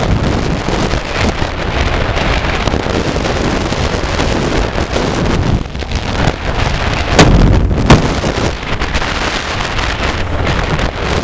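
Heavy wind noise buffeting the microphone on a vehicle travelling at highway speed, with road and engine rumble underneath. Two sharp, loud gusts hit the microphone a little past the middle, less than a second apart.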